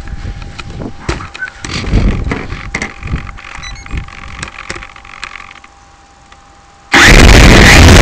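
Audio from a camera on an RC Super Cub model plane: gusty wind buffeting the microphone with uneven knocks and rattles over a faint steady whine. About seven seconds in it jumps abruptly to a very loud rush of motor and wind noise that overloads the microphone.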